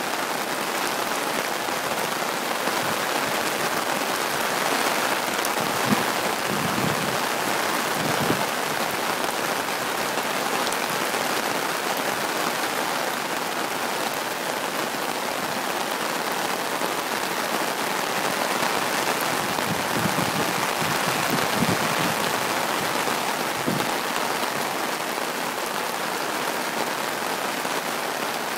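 Heavy typhoon rain pouring down steadily, with a few faint knocks here and there.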